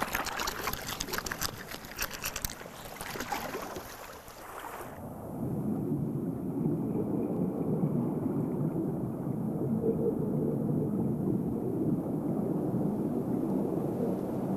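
Water splashing and dripping, with many small clicks. About five seconds in it gives way abruptly to a steady, low, muffled rush of water, as heard underwater.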